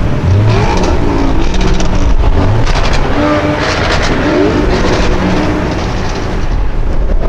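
A high-performance car engine revving loudly, its pitch climbing and dropping several times as it accelerates through the gears.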